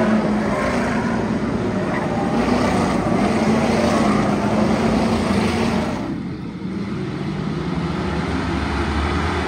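Engines of a pack of stock cars racing around a short oval track, running steadily under throttle. The sound drops briefly about six seconds in, then picks up again.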